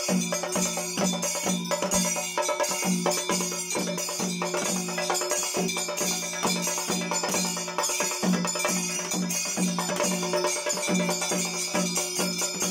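Live temple percussion: a drum beating about twice a second under continuous, bright metallic clashing and jingling, played as a steady ritual rhythm.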